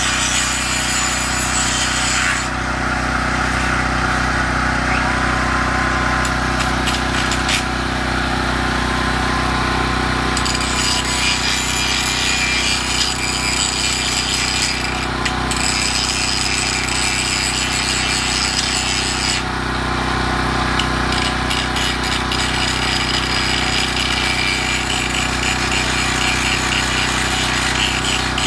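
Handheld power tool running continuously against the steel of a shopping cart's handle, its sound rising and easing every few seconds as the load on it changes.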